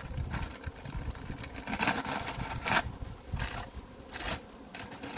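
Clear plastic sheet crinkling and rustling as it is peeled back off the top bars of a beehive's frames, in several bursts, loudest about two to three seconds in.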